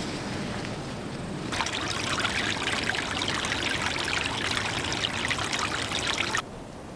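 Running water trickling and splashing, loudest and most crackly from about a second and a half in, cutting off abruptly near the end.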